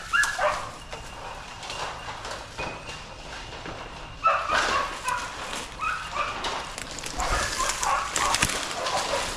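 Two hunting dogs baying in bursts of barks, the voice they give when working game. Barks come just at the start, again about four seconds in, and several more near the end.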